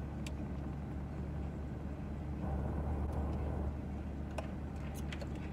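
Steady low hum of a parked car's idling engine heard inside the cabin, with a few faint clicks.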